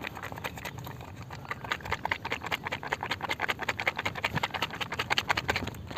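A small plastic sachet of G-Lay Unico engine oil additive is shaken hard in the hand. It makes a fast, even rhythm of crinkling strokes, several a second, as the liquid inside is mixed.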